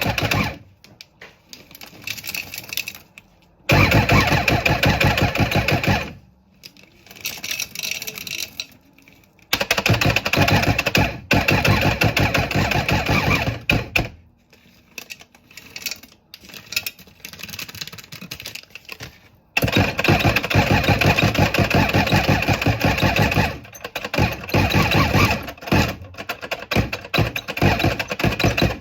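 Food processor motor running in bursts of a few seconds, switched on and off about four times with short quiet gaps between.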